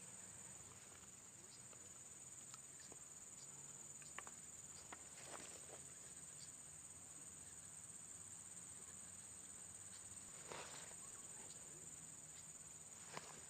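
Faint, steady high-pitched insect trilling, with a few small ticks and rustles.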